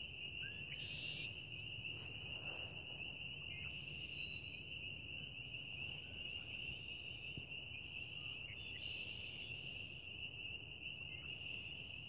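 A steady, high-pitched trilling chorus, with a few faint, brief higher chirps over it.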